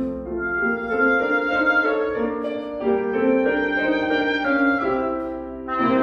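Oboe playing a melody of held and moving notes over piano accompaniment, with a short break near the end before a louder new note.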